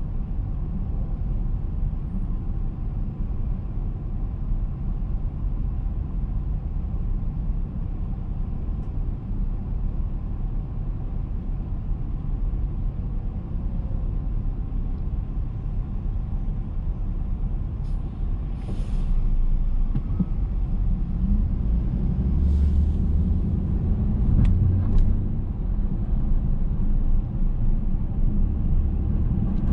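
Low steady rumble of a car waiting in stopped city traffic. It grows louder about two-thirds of the way through as the car moves off, with a few short hisses.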